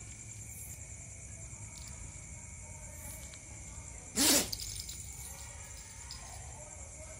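A dog sneezes once, a short, sharp burst about four seconds in, over a steady high-pitched background trill.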